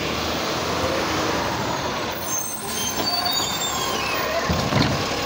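Front-loading garbage truck running close by: a steady engine and hissing noise, with faint high squeals about three seconds in and a low thump near the end.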